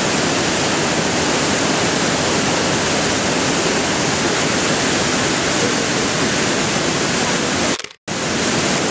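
River rushing over boulders in whitewater rapids: a steady, loud rush of water. It cuts out for a moment about eight seconds in, then comes back.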